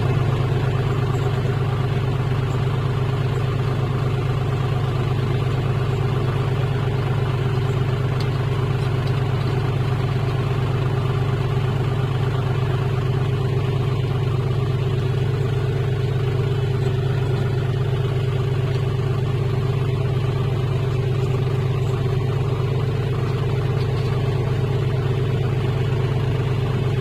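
John Deere 5105 tractor's diesel engine running loud and steady at an even speed, with no revving or change throughout.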